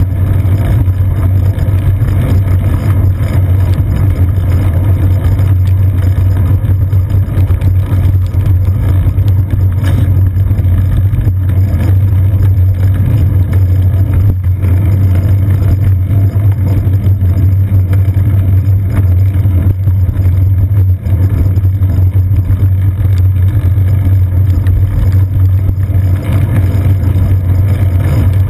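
Steady, loud low rumble of wind and road vibration picked up by a seat-post-mounted GoPro Hero 2 as the bicycle rolls along wet pavement, with a fainter hiss on top.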